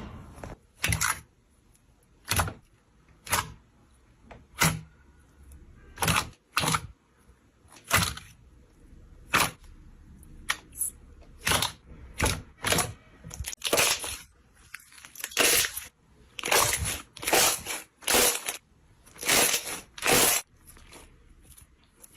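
Slime being squeezed and pressed by hand, giving short crunchy crackles one after another, spaced irregularly and coming faster in the second half.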